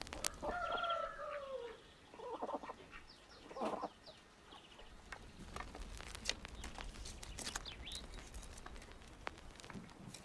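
A chicken calls once, a long call of about a second and a half that falls in pitch at the end, followed by two short clucks. Scattered sharp crackles from a wood fire run through it.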